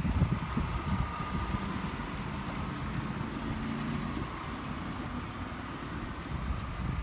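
A vehicle engine running steadily at idle, with wind buffeting the microphone.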